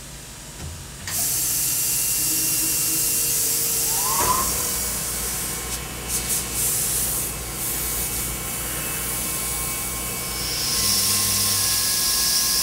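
Hiss of a mist-coolant spray at a Tormach PCNC 1100 CNC mill, switching on sharply about a second in and running steadily, with a brief rising spindle whine about four seconds in. Near the end a second, higher hiss and a low hum join as the end mill runs a light clean-up contour pass in a steel soft jaw.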